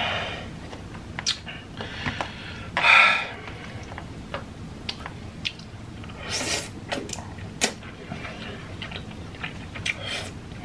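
Close-miked eating sounds: chewing and wet mouth noises with small clicks of a fork on teeth and the container. A loud breathy sound comes about three seconds in, and a noisy slurp of pasta noodles comes around six seconds in.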